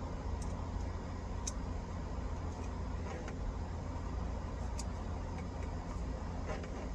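Steady low rumble in the background, with a few light sharp clicks and small handling sounds as an electrical wire's insulation is stripped back.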